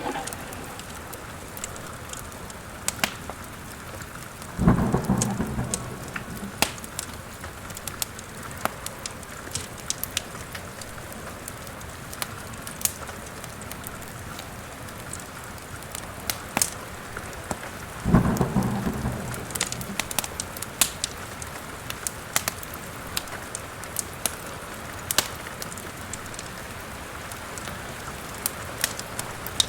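Steady rain with two claps of thunder, about five seconds in and again about eighteen seconds in, each rumbling and dying away over a couple of seconds. Over it runs the crackle of a fireplace fire, with scattered sharp pops.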